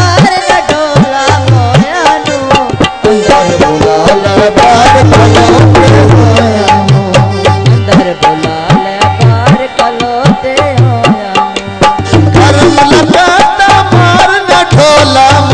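Punjabi folk song music: hand drums keep a steady beat of low strokes under a wavering, ornamented melody and a held drone.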